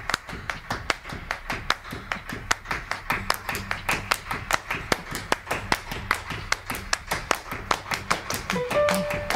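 Quick, evenly spaced claps, about five a second. A low hum joins about three seconds in, and near the end a melody of short notes starts.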